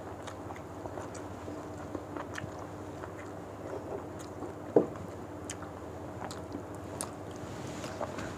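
People eating by hand: chewing, with small wet clicks and smacks as fingers pick at fish and rice, over a steady low hum. A brief louder sound comes about five seconds in.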